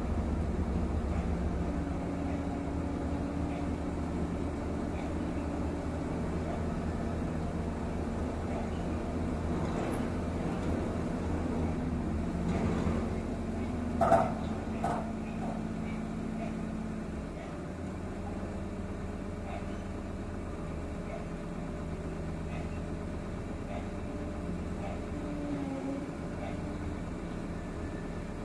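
Steady engine drone of heavy equipment, muffled through a vehicle's windshield, with a Dynapac 250 single-drum roller working just outside. A brief, louder sound about halfway through.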